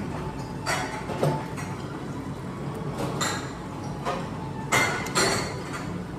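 Several short clinks and knocks of tableware being handled during a meal, over a steady low hum.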